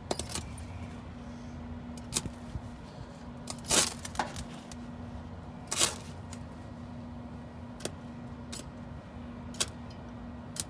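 Scattered sharp metallic clicks and clinks, about eight in all with the loudest near four and six seconds in, over a steady low hum.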